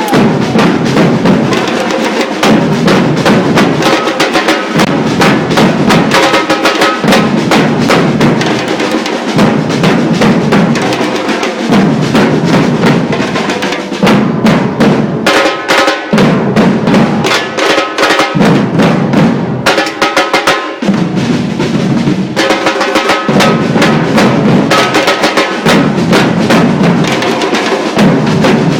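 Percussion ensemble drumming together: snares and other drums in a dense, driving rhythm over deep bass drums that hit in a steady repeating pattern.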